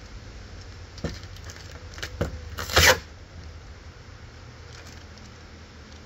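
Old, wrinkled film being peeled and scraped off a Hyundai Sonata's headlight: short scratchy tearing strokes about a second in and again around two seconds, the loudest a brief rip near three seconds.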